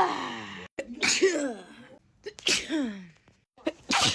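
A person in a sneezing fit, sneezing about once a second. Each sneeze is a short, sharp, voiced "achoo" that falls in pitch.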